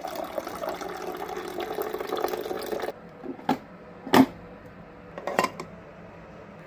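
Old drip coffee maker gurgling and hissing as it brews. The gurgling cuts off suddenly about three seconds in, and three sharp knocks follow.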